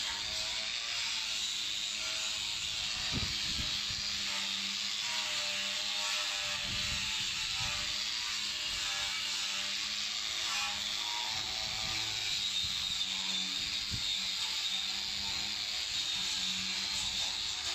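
Angle grinder running steadily with a red abrasive wheel pressed against a metal door, scouring off old paint and rust before painting, with a few short knocks along the way.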